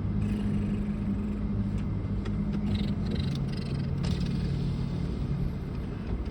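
Car cabin noise: engine and road rumble with a steady low hum that drops in pitch about three seconds in.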